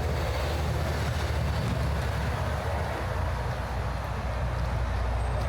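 Busy city street traffic: a steady low rumble of passing vehicles' engines and tyres, with no single event standing out.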